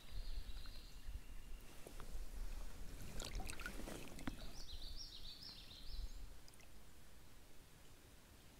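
Faint water splashing and sloshing in a stream, loudest about three to four seconds in.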